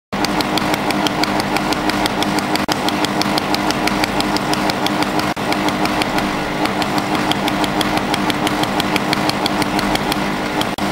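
Pulsed solid-state laser welder firing at about five pulses a second during laser cladding with wire: a steady train of sharp ticks over the machine's continuous hum.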